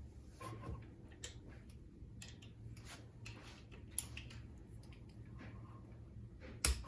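Ratchet of a click-type torque wrench ticking faintly as the connecting-rod nuts are drawn up, with a sharper, louder click near the end as the wrench breaks at its 20 ft-lb setting.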